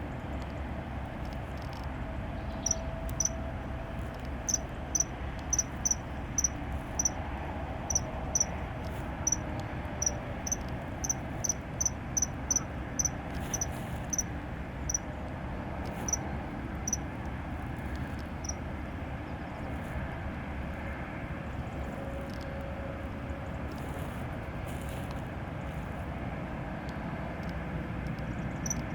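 Common kingfisher giving a long series of short, shrill high-pitched call notes, roughly two a second, which stops about two-thirds of the way through. A steady low rumble lies underneath.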